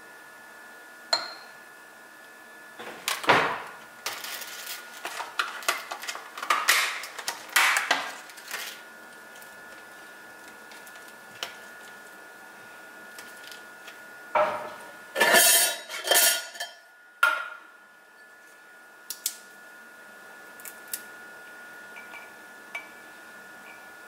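Food being plated by hand on a kitchen counter: clicks, knocks and plastic crackles as a burrata tub and a raspberry punnet are handled and items are set on a ceramic plate. The handling comes in two busy spells, one a few seconds in and one past the middle, with a few light ticks near the end. A faint steady high hum sits underneath.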